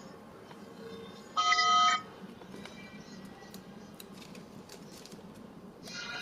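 Quiet background music with a loud electronic beep-like tone about a second and a half in, lasting about half a second. A few faint clicks follow.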